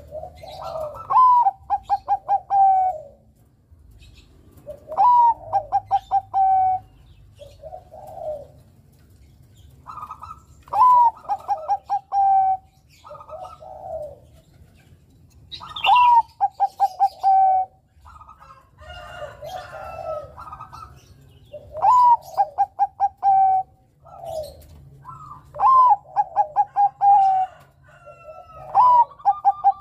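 Zebra dove (Bangkok-bred perkutut) singing its cooing song over and over, a phrase every three to four seconds. Each phrase is a low coo and a rising note, followed by a quick run of five or six short staccato notes.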